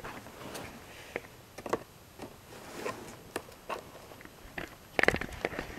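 Toy box packaging being handled and pried at while someone works to open it: scattered clicks, crinkles and scrapes, with a busier, louder cluster about five seconds in.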